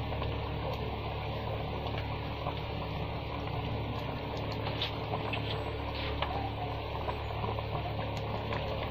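Catfish gravy boiling in a wok, a steady bubbling with scattered small pops, over a steady low hum.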